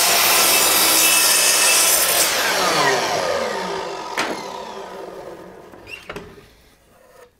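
Skil MS6305-00 10-inch sliding compound miter saw cutting through a board of red oak, running loud and steady without straining. After about two seconds the cut ends and the blade winds down with a falling hum that fades over a few seconds. A single knock comes about four seconds in.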